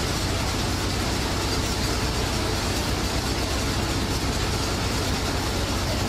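Fish-processing machinery running steadily: an even mechanical noise over a low, constant hum.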